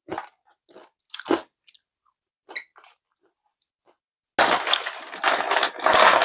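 A few short, sharp crisp crunches, then from about four seconds in a loud, dense crinkling of a foil-lined plastic bag being handled.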